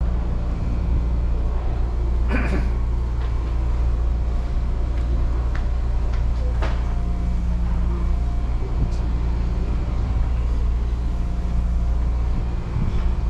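A steady low hum and rumble with a few short clicks, about two and a half seconds in and near the seven-second mark.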